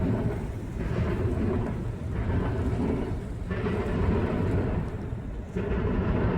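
Freight train rolling past: a steady low rumble of wheels on rail that swells and eases every second or two.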